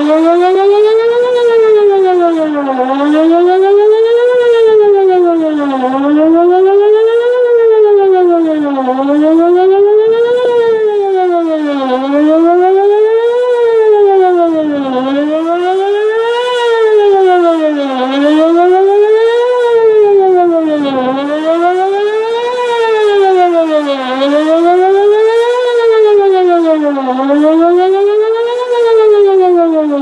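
Whelen WPS-2904 electronic outdoor warning siren sounding a test tone: one loud pitched tone that sweeps up and down over about an octave, one rise and fall roughly every three seconds.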